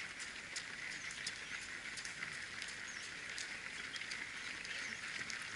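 Outdoor ambience of runners' footsteps pattering lightly on the road, over a steady high hiss with small bird chirps from the roadside trees.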